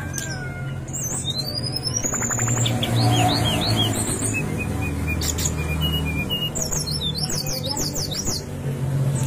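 Brown-chested jungle flycatcher singing: a long rising whistle, then short upslurred notes and a few level whistles, and near the end a fast run of sweeping notes. A steady low hum runs underneath.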